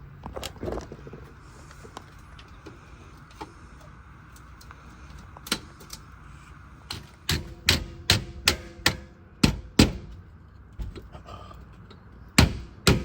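A run of sharp knocks and taps, several a second, from about seven to ten seconds in, with more near the end and a few scattered clicks before.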